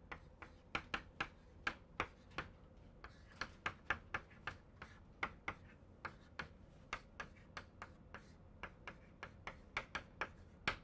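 Chalk writing on a blackboard: a string of sharp, irregular taps and clicks, several a second, as the chalk strikes and lifts off the board.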